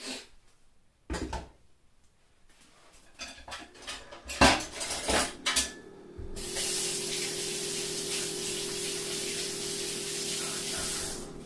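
Dishes and utensils knocking and clattering several times, then from about six seconds in a kitchen tap running steadily for about five seconds before shutting off.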